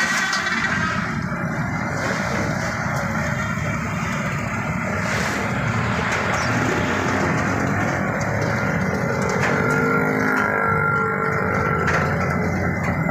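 In-shell peanuts pouring from a sack and rattling down into a metal hopper, over the steady running of a drum peanut-roasting machine.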